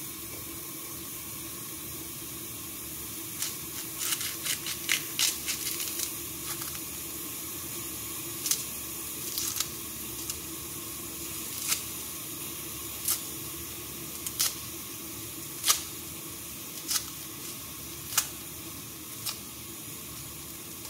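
Garlic being peeled with a small knife: dry papery skin crackling and sharp clicks of the blade on the cloves. A quick cluster of clicks comes about four seconds in, then single clicks every second or so, over a steady background hiss.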